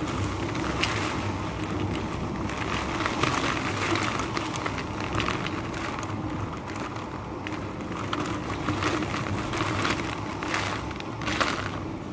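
A storm of wind and heavy rain: a steady rush of noise, with many small crackles and gusts buffeting the microphone.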